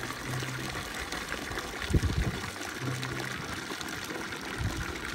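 Water from a garden hose pouring and splashing into a plastic tub partly filled with water, with a low thump about two seconds in.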